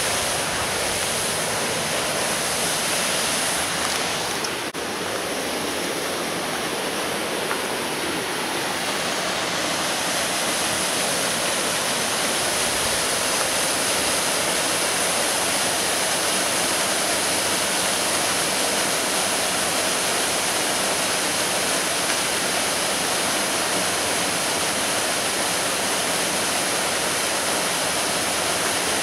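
Small creek waterfall spilling over a rock ledge into a pool, a steady rush of falling and flowing water.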